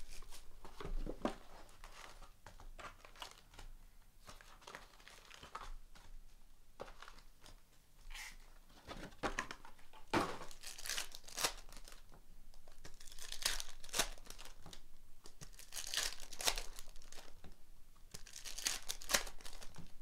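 Clear plastic wrap crinkling and tearing as it is stripped off a box of trading-card packs, then the foil packs rustling as they are handled. The sound comes as irregular rustling bursts, denser in the second half.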